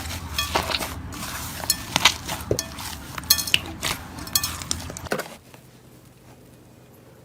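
Hard objects clicking and clinking at an irregular pace while slime is handled, some clinks ringing briefly. The clinks stop about five seconds in, leaving only a faint low hum.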